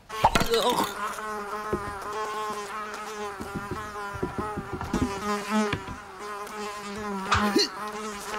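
Cartoon housefly buzzing steadily, its pitch wavering as it flies about, with a few short sharp knocks along the way.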